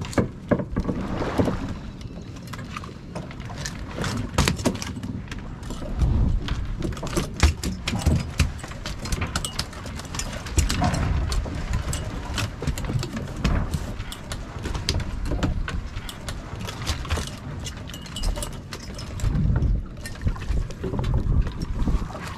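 Black rockfish flopping and slapping on a boat deck, with frequent knocks and rattles of hooks and jig line being handled, over a steady low rumble of the boat at sea.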